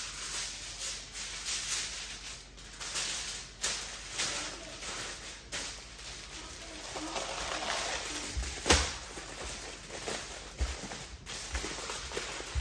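Foil crinkling and rustling in uneven crackles as a rack of baby back ribs is wrapped, with one sharp tap a little before the last third.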